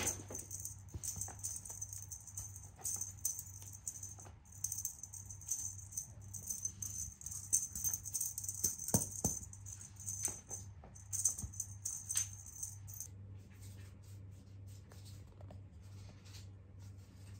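A jingling cat wand toy shaken in quick, irregular bursts as kittens bat at it, with light clicks mixed in. The jingling stops about thirteen seconds in, leaving a low steady hum.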